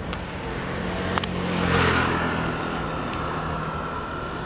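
A motor vehicle passing on the road: engine and tyre noise swell to their loudest about two seconds in, then fade. A sharp double click comes just after one second in.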